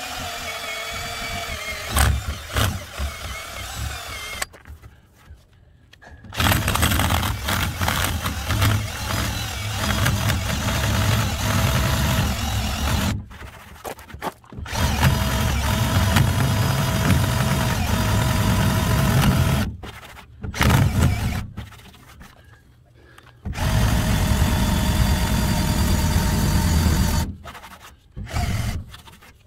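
Cordless drill spinning a rubber decal-eraser wheel against a truck's painted body panel to strip pinstriping. It runs in stretches of several seconds with short stops and a few brief bursts between them. The wheel chatters against the paint, which the owner puts down to it being pushed out of round.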